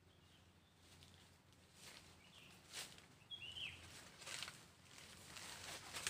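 Faint outdoor quiet with a few soft rustles, like dry leaves being disturbed, coming more often toward the end, and one short bird chirp a little over three seconds in.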